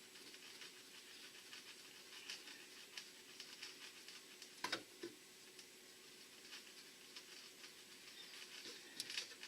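Faint scratching and light clicks of a wing nut being turned by hand up a plastic rod on a transducer mount, with a sharper click about halfway through and another near the end.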